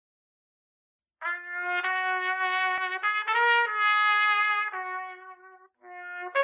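A trumpet playing a slow phrase of held notes, each changing pitch every second or so. It comes in about a second in and breaks off briefly near the end before the next note.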